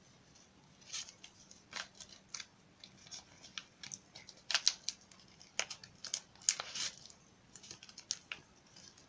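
Clear plastic packaging crinkling and crackling in short, irregular bursts as it is handled and opened, loudest about halfway through.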